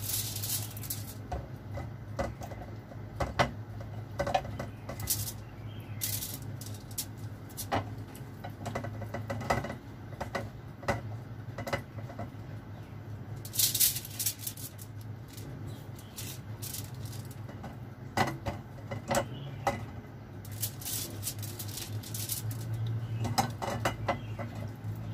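Kitchen clatter: irregular clinks and knocks of utensils against dishes while food is prepared, over a steady low hum.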